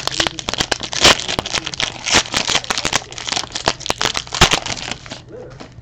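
Foil wrapper of a 2017 Panini Optic Football card pack being torn open and crumpled by hand: a dense crinkling crackle that stops shortly before the end.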